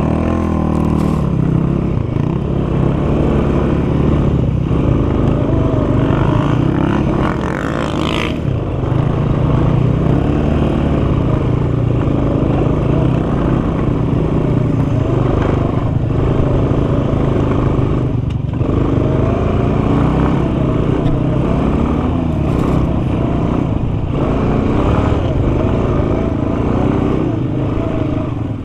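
Sport quad (ATV) engine running under way across sand, close to the microphone. Its note rises and falls with the throttle, with several brief dips where the throttle is let off.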